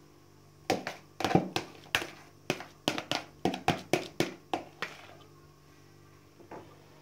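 A metal spatula knocking against the rim of a plastic mixing bowl to shake off whipped cream. It makes a quick run of about fifteen sharp taps over four seconds, then one more tap near the end.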